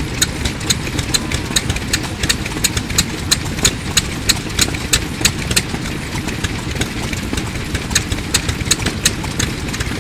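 Yoshida Type D petroleum engine running steadily, driving a straw rope making machine, with a rapid, regular clicking of the machine's gearing over the low engine sound, about three to four clicks a second.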